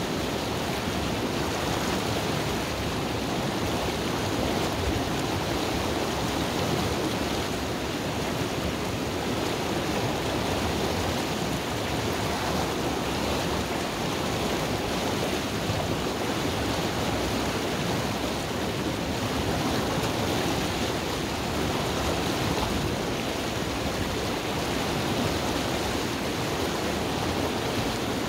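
Mountain river water rushing steadily through a narrow rocky chute into a pool.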